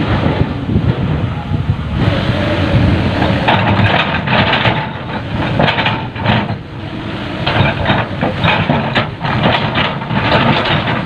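Heavy diesel machinery, an excavator loading a dump truck, running steadily under a run of irregular knocks and clatter that grow busier after the first few seconds.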